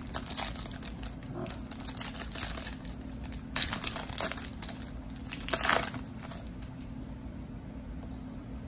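Foil trading-card pack wrapper crinkling and tearing as it is ripped open by hand, with the sharpest crackles about three and a half and six seconds in.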